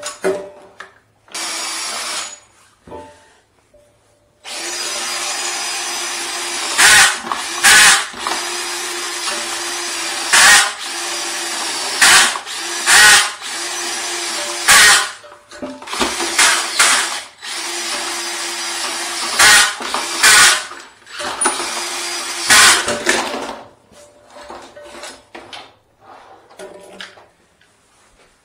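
Cordless drill spinning a flexible-shaft drain-cleaning cable down a clogged washbasin drain line: a brief spin near the start, then a steady run of about twenty seconds that stops near the end. The run is broken by loud knocking bursts every second or two.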